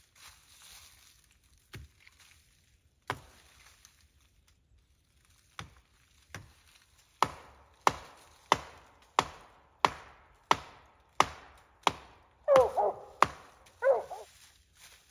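A tree trunk being knocked hard by hand, a steady run of about ten sharp wooden knocks roughly two-thirds of a second apart after a few scattered ones. This is squirrel-hunting tree work, done to make a squirrel in the tree move. Two short higher-pitched calls come near the end.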